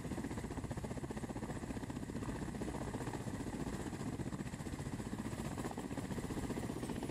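Ka-52 attack helicopters, with twin coaxial rotors and turbine engines, running close by as one flies low past: a steady, fast-pulsing rotor beat over turbine noise.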